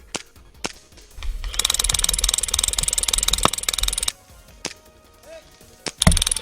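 Classic Army M134-A2 airsoft minigun firing: a rapid, continuous rattle of BBs for about three seconds starting a second in, and another burst starting near the end. A few single sharp snaps of shots fall between the bursts.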